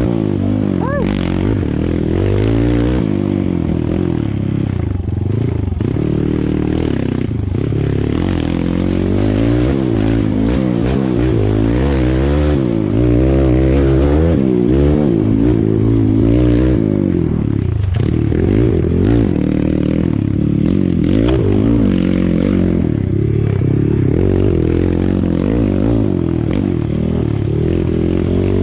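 Dirt bike engine revving up and down without a break as it is ridden hard along a rough trail, the pitch rising and falling every second or two. Short knocks and rattles from the bike over the rough ground.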